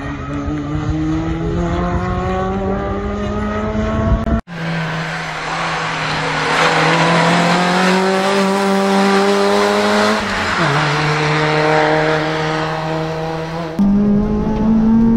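Peugeot 106 rally car accelerating hard, its engine note climbing steadily through the revs, with a brief sudden break a little over four seconds in. About two-thirds of the way through, the pitch drops with an upshift and climbs again. Near the end the engine is heard louder, from inside the car.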